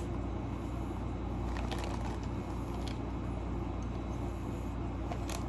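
Steady low electrical or fan hum, with a few faint light clicks and rustles scattered through it.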